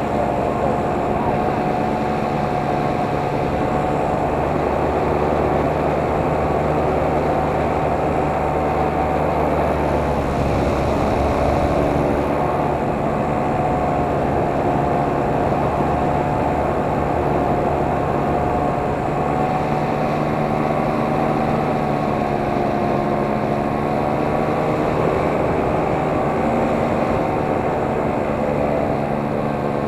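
Multirotor camera drone's motors and propellers whining steadily, a cluster of held tones over a rushing noise, shifting in pitch about ten seconds in and again near the middle.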